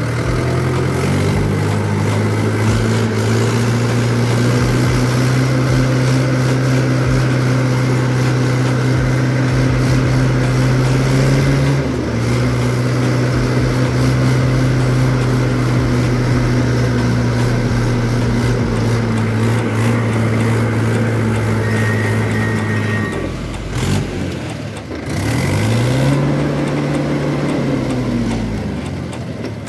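Mahindra 575 DI tractor's four-cylinder diesel engine running under throttle while driving. Its note rises as it pulls away and then holds steady, with a small drop about twelve seconds in. Near the end the engine note falls away, then rises and falls again.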